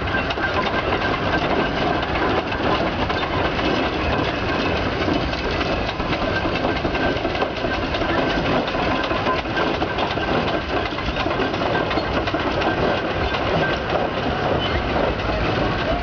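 Antique Case steam traction engine running as it drives along, a steady mechanical clatter of many fast clicks and knocks.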